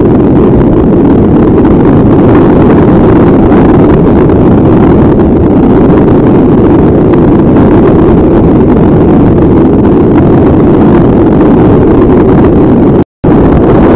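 Loud, steady wind buffeting on the microphone of a camera flying under a paraglider wing. The sound cuts out for a split second near the end.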